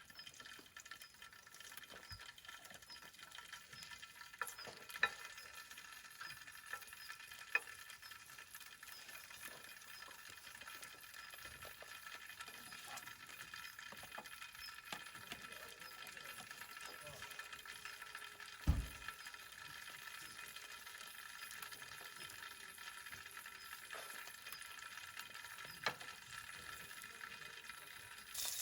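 Food sizzling faintly in a pan, a steady hiss with a few light clicks and one dull thump about nineteen seconds in.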